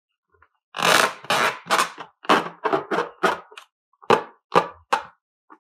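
A filled rubber balloon squeezed and rubbed between hands: a run of short squelching squeezes, about two or three a second, the first the longest and loudest.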